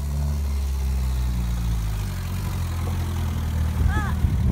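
Car engine running steadily at low revs, with a brief squeak and a few knocks near the end.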